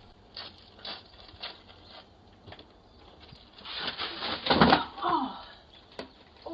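Footsteps on a hard doorstep about twice a second, then about four seconds in a loud scuffle and thud as a woman slips and falls, followed by a short cry falling in pitch. Heard through a doorbell camera's microphone.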